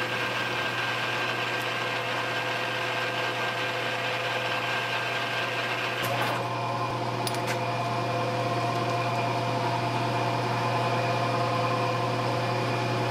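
Metal lathe running steadily, a hum with several held tones, while a fine-tooth file rasps lightly on the spinning steel screw, radiusing its corners, for the first six seconds or so. The hum's tone shifts at about six seconds.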